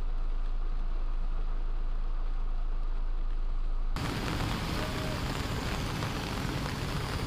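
Heavy rain and traffic on a flooded road. At first it is a muffled, steady hiss under a low electrical hum. About four seconds in, a cut brings a louder, rougher rush of rain and cars pushing through the floodwater.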